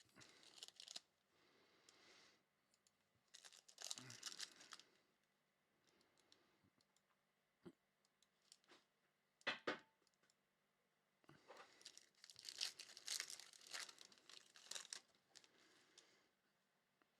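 Foil wrapper of a trading-card pack being torn open and crinkled, in several short bursts of rustling and a longer stretch near the end, with two sharp clicks a little past the middle.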